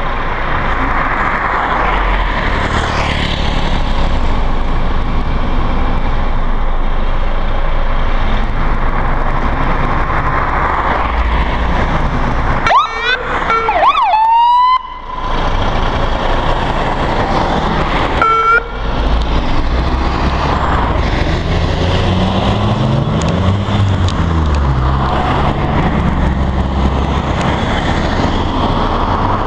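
Fire engine's electronic siren sounding in two short bursts of fast, repeated rising sweeps as the appliance turns out, about thirteen seconds in and again about five seconds later, over a steady rumble of engines and traffic. Later an engine revs up and down through its gears.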